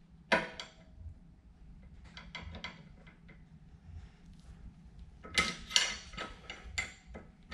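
Metal hand tools clinking on a ball joint: a sharp clink with a short ring about a third of a second in, faint taps, then a quick run of metallic clicks from about five seconds in as a wrench works the ball joint nut while a 6 mm hex key holds the stud from turning.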